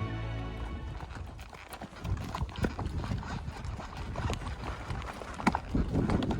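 A horse's hooves clip-clopping along the trail in an uneven run of knocks that grow louder near the end. Background music ends right at the start.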